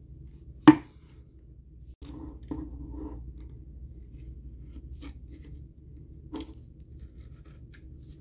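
A single sharp knock about a second in, then light scraping and a few small clicks as a thin metal pick works at the end cap of an Apple wireless keyboard's aluminium battery tube.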